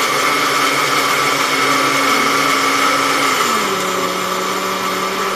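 Electric countertop blender running on speed one, blending a thick mango shake in its glass jar. Its motor hum drops a step in pitch about three and a half seconds in, and it stops right at the end.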